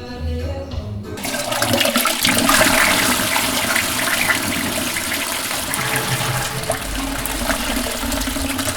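Music stops about a second in and a toilet flushes, a loud rush of water that peaks soon after it starts and keeps running to the end.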